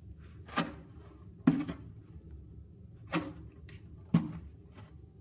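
Four sharp knocks at uneven intervals, each with a brief low thud.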